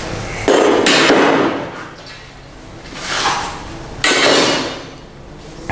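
Lengths of copper pipe set down on a wooden parquet floor: two loud metallic clanks about three and a half seconds apart, each ringing briefly as it fades.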